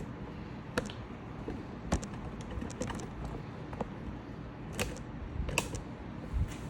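Scattered light clicks and knocks of things being handled, about seven spread unevenly, over a low steady hum.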